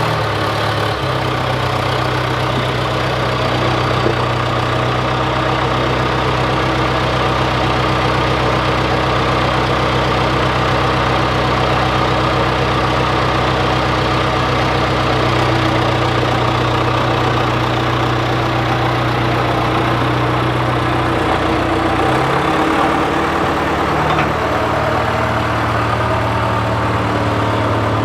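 John Deere 410C backhoe's diesel engine running steadily; its note changes a little over 20 seconds in.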